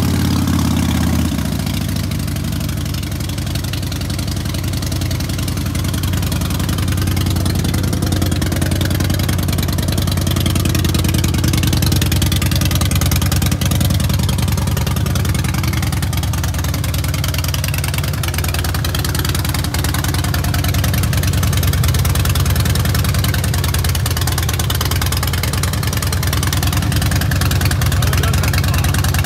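2006 Harley-Davidson Softail Deluxe trike's 88-cubic-inch (1450 cc) fuel-injected V-twin idling just after a start. It is a little louder for the first second or so, then settles to a steady idle.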